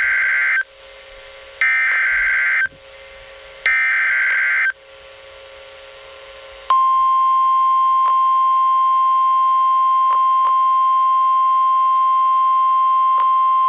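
NOAA Weather Radio Emergency Alert System alert: three one-second bursts of warbling SAME header data tones, a pause of about two seconds, then the steady 1050 Hz warning alarm tone that signals a warning, here a tornado warning. A few faint static clicks sound over the tone.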